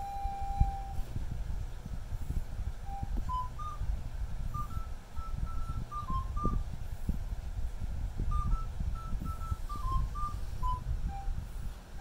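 Background music: a simple melody of single pure, whistle-like notes stepping up and down, playing the same short phrase twice, over a steady low rumble.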